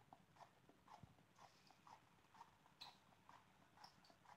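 Faint, regular strokes of a raw banana being pushed across a mandoline slicer, about two a second, cutting thin slices for chips.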